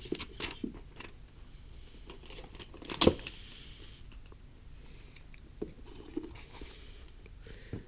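Thin plastic protective film being peeled off a smartphone's screen, crinkling softly, with light handling clicks and one sharp click about three seconds in.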